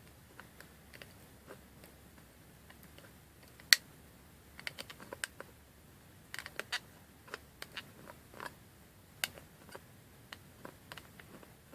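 Irregular small plastic clicks and ticks, with a sharper click about four seconds in, as the parts of a 3D-printed PLA adjustable wrench are worked back and forth. The print-in-place mechanism has just broken loose after being stuck.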